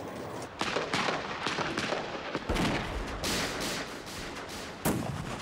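Battle gunfire: a run of irregular shots in quick succession, a few of them heavier, as on a war-footage soundtrack.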